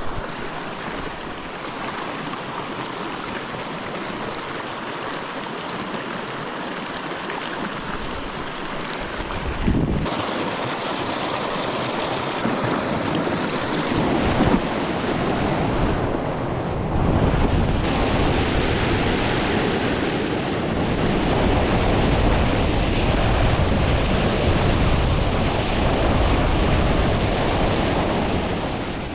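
Steady rush of a fast-flowing stream, loud and close, with wind buffeting the microphone. It grows louder and deeper about ten seconds in and again a few seconds later.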